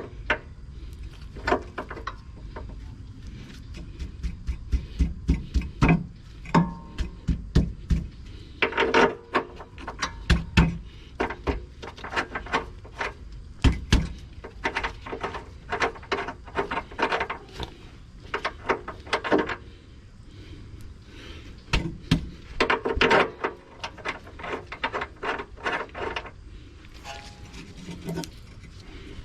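Metal knocks, clanks and taps from tools and suspension parts being worked under a car, coming in bursts of quick strikes with short pauses between. The parts are a sway bar and its stabilizer links being forced up into line.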